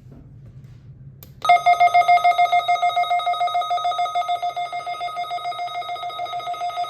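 Weather alert radio receiver's alarm sounding in response to the weekly test: a loud, rapidly pulsing electronic beep that starts about a second and a half in and keeps going.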